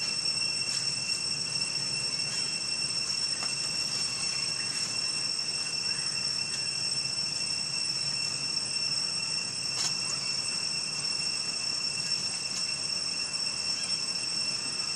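Insects droning in a continuous, steady high-pitched buzz, with a faint click or two.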